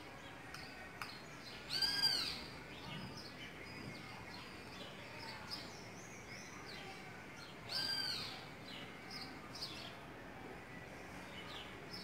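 Birds calling and chirping: two louder, arched, slightly rising-then-falling calls about 2 and 8 seconds in, with short high chirps scattered throughout over a steady background hum of outdoor noise.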